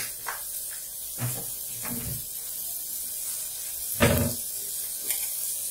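Kitchen handling knocks: a few soft knocks, then one louder thump about four seconds in, over a steady faint hiss.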